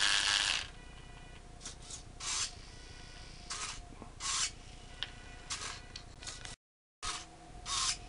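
Electric drive motor and gear train of a toy RC rock crawler spinning its wheels in the air with no load. It runs loudly and stops about half a second in, then gives several short spurts over a faint steady whine.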